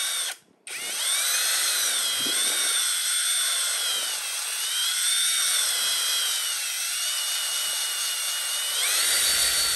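A small electric motor, like a power tool's, running with a steady high whine whose pitch sags and rises as the load changes. It cuts out for a moment about half a second in, then runs on.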